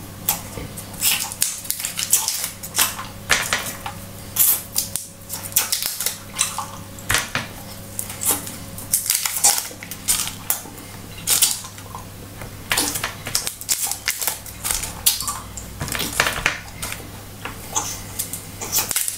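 Paper wrappers of Hubba Bubba gum cubes crinkling as the cubes are unwrapped one after another, in many short, irregular crackles, over a low steady hum.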